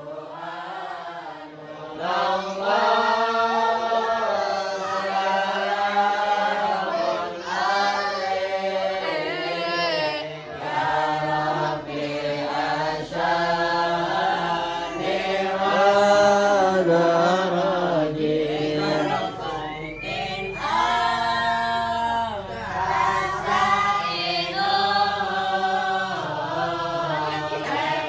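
A group of men chanting Islamic devotional verses together in unison, in long drawn-out melodic phrases with short breaks between them.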